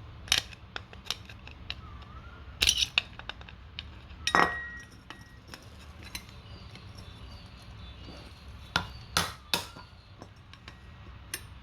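Scattered metallic clinks and knocks as hand tools work against a brass water meter body to push out its plastic insides, one strike leaving a short ringing tone.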